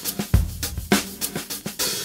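Background music with a steady drum-kit beat: kick drum, snare and hi-hat.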